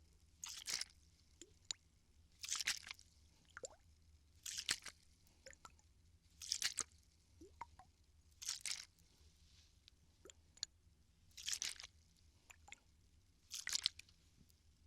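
Plastic water bottle handled close to the microphone: a crinkly, crunchy burst about every two seconds, seven in all, with small clicks and taps between them.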